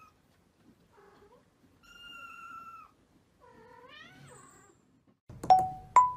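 Kittens meowing: a few thin, high calls, one held long and steady and the last one rising. Near the end, two much louder short tones sound, the second higher than the first.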